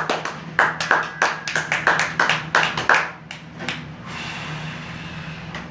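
A small audience clapping for about three seconds as a song ends, then fading out to a steady low hum from the band's amplifiers.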